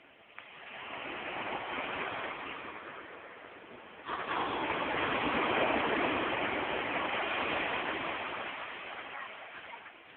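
Ocean surf washing onto a beach: a rush of breaking waves that swells about a second in, eases, then surges suddenly about four seconds in and slowly fades.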